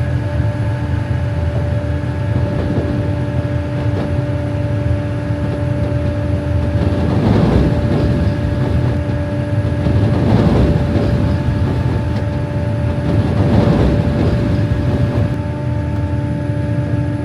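Oxbo 8430 sweet corn harvester running: a steady low rumble with a steady multi-tone whine, swelling louder three times about three seconds apart.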